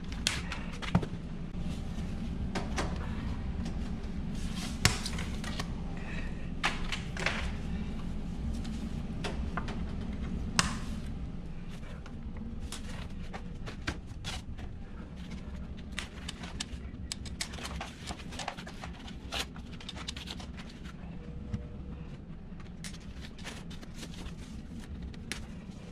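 Unpacking noise: side cutters snipping zip ties with sharp irregular clicks and snaps, mixed with rustling and handling of foam wrap, plastic and cardboard packing.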